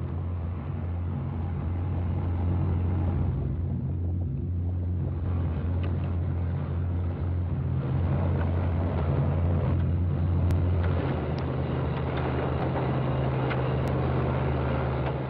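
Engines of concrete paving machinery running steadily: a low, even drone with a rattling noise over it.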